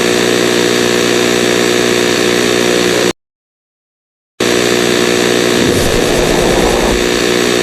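Harsh, distorted electronic alert buzz of a mock Emergency Alert System broadcast, sounding in two loud blasts of a few seconds each that start and stop abruptly, with about a second of dead silence between. A low rumble joins in during the second blast.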